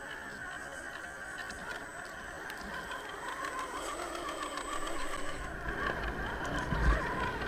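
Whine of an RC crawler's 55-turn brushed electric motor and gear drivetrain, wavering in pitch as the truck crawls through mud and grass. A short low thump comes near the end.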